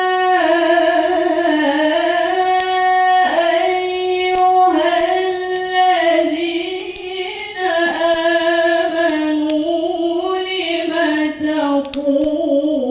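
A woman reciting the Qur'an in the melodic tilawah style, drawing out long ornamented vowels with slow turns of pitch in a few long held phrases.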